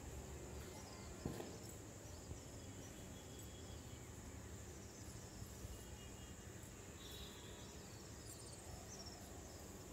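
Faint sizzle of mustard seeds heating in oil in a nonstick pan: a steady quiet hiss with a single click about a second in.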